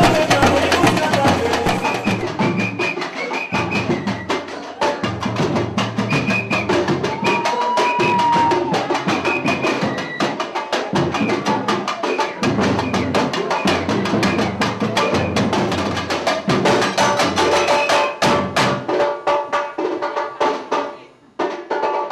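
Samba percussion playing a fast, dense drum rhythm as part of the music. It breaks off briefly about 21 seconds in, then starts again.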